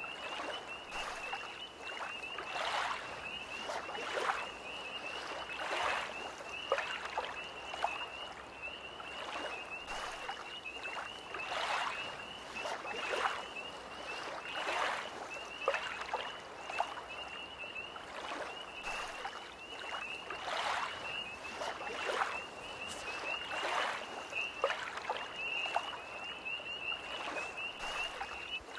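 Small lake waves lapping against the shore in soft splashes every second or two, under a steady, high, unbroken trilling chorus of tree frogs.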